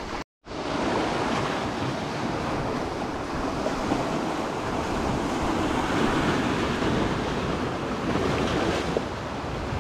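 Sea surf washing onto the beach, mixed with wind buffeting the microphone: a steady rush of noise that starts after a split-second of silence at the very beginning.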